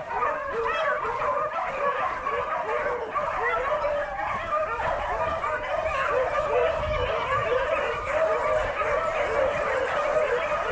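Pack of rabbit beagles baying in full cry, many voices overlapping without a break: the hounds are running a rabbit's track.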